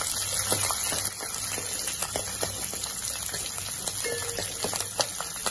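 Tempering frying in hot oil in a steel pan: green chillies with mustard seeds, chana dal and urad dal, giving a steady sizzle with many small pops and crackles. A steel spatula scrapes and stirs against the pan now and then.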